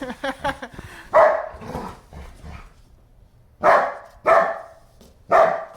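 German Shepherd dog barking: one deep bark about a second in, then three more in quick succession near the end, with a brief whiny yelp at the start.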